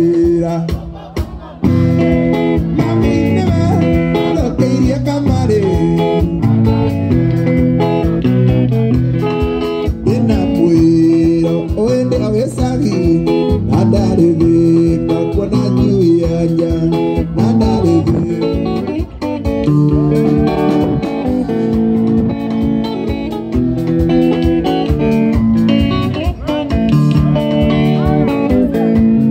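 Live mugithi band music: electric guitar picking a melody over a drum kit.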